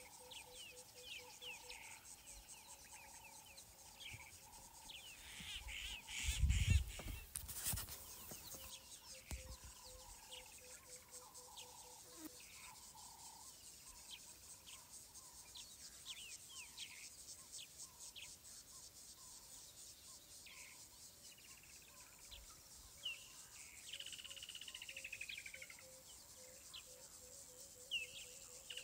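Birds calling with many short, quick chirps over a steady high insect buzz, with a faint rapid pulsing tone underneath. A loud low thump comes about six to seven seconds in, and a longer falling whistle is heard twice near the end.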